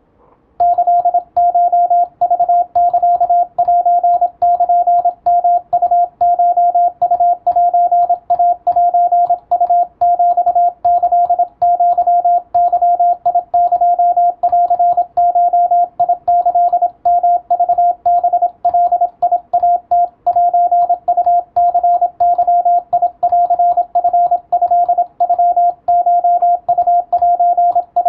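Morse code sent as a single steady pitch, keyed on and off in a fast, continuous run of dots and dashes from about half a second in, with faint clicks at each keying.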